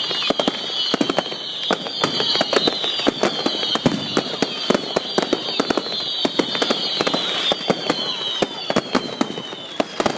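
Fireworks display: a rapid, continuous barrage of bangs and crackles, overlaid with high whistles that slide down in pitch one after another.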